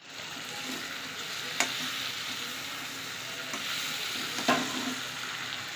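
Pork pieces sizzling as they fry in spice paste in an iron kadai, stirred and scraped with a slotted spatula. The spatula knocks sharply against the pan twice, about one and a half and four and a half seconds in.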